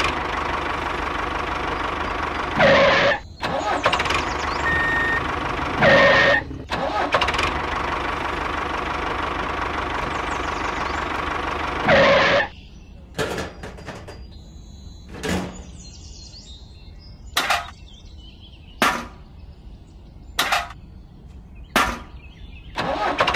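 Tractor engine running steadily, swelling louder briefly three times, then cutting out about halfway through. After that comes a string of sharp knocks and clicks, about one every second or two.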